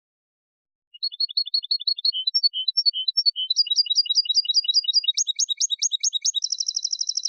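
European goldfinch (jilguero) singing a Malaga-style contest song, from a copia recording used to tutor young birds. About a second in, a long phrase of rapid, evenly repeated high chirping notes begins. It changes figure several times and runs into a fast trill near the end.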